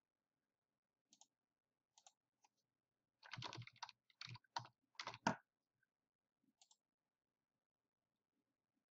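Computer mouse clicking: a few faint single clicks, then a quick run of louder clicks from about three to five and a half seconds in.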